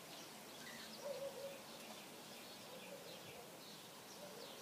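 Faint outdoor background hiss with distant birds chirping now and then.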